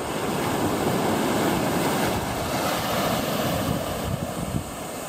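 Small ocean waves breaking and washing up a sandy beach: a steady rush of surf that swells in the first second or two, then eases. Wind buffets the microphone underneath.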